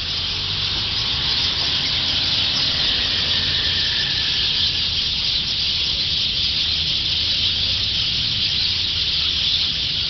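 Dense, steady chorus of many distant waterbirds at a wetland, blurred into a continuous high-pitched wash, with a low rumble underneath.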